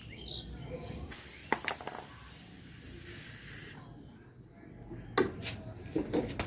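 Air hissing out of a pressurised tubeless motorcycle tyre through the puncture while a repair plug is being worked in. The hiss starts suddenly about a second in, runs steadily for nearly three seconds and cuts off, followed by a few sharp clicks from the repair tool.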